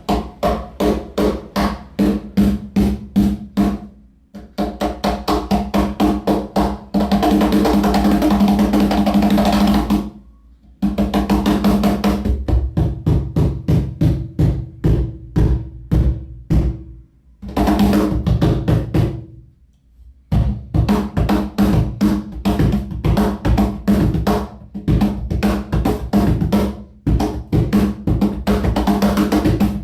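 A wooden cajon played by hand in fast grooves and fills, with a dense roll partway through and a few short pauses. Every slap sets off a deep, resonant boom from the box. The front plate has been re-glued and screwed down, and the internal snare wires taped with electrical tape, so it sounds woodier with less snare buzz.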